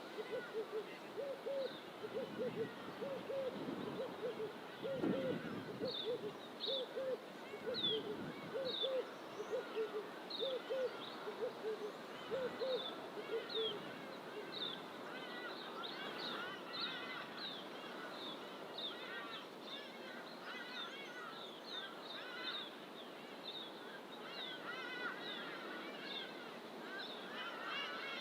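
A bird chorus in fynbos bush. For the first half a bird gives a long run of low hooting or cooing calls, about two a second. A higher bird repeats short down-slurred whistles throughout, and other birds twitter behind them.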